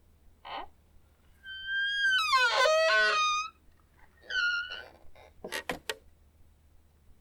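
Squeaky door hinge creaking as a door is slowly opened: a short squeak, then a long, loud creak wavering and sliding in pitch, then a shorter creak. A few sharp clicks follow near the end.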